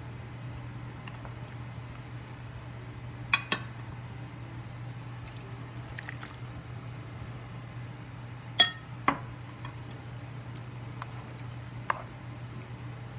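Kitchenware clinking while cooking: a few short, ringing clinks of utensils against dishes or pans, coming in two quick pairs and then once more near the end, over a steady low hum.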